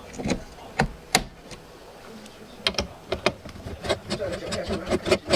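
Irregular sharp clicks and knocks of computer parts being handled and fitted together, about a dozen, the loudest about a second in.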